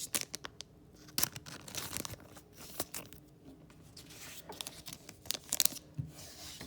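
Thin plastic card sleeves crinkling and rustling as trading cards are slid into them, with many short scrapes and clicks.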